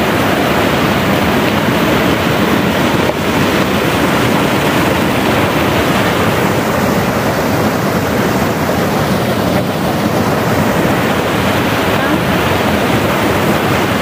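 Small waterfall cascading over rocks into a pool: a steady, loud rush of falling water close by.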